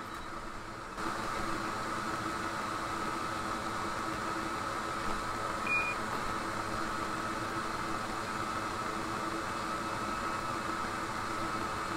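Steady hiss of air blowing at a microsoldering bench, growing louder about a second in, with one short, high beep a little before the middle.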